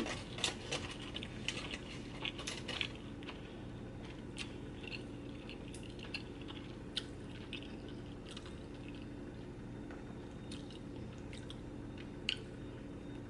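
A person chewing food close to the microphone: wet mouth clicks and smacks, frequent in the first few seconds, then sparser.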